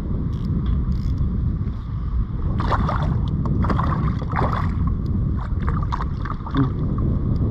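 Hooked peacock bass thrashing at the surface beside a kayak: a run of irregular splashes from about two and a half seconds in until near the end, over a steady low rumble of wind on the microphone.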